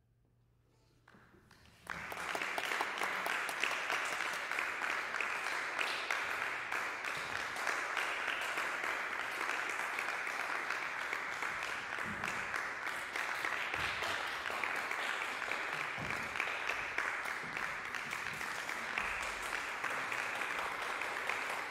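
After a brief hush, audience applause breaks out suddenly about two seconds in and carries on steadily.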